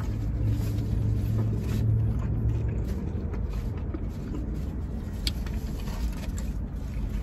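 Low, steady vehicle rumble heard from inside a car, with a faint hum in the first few seconds and a few faint clicks.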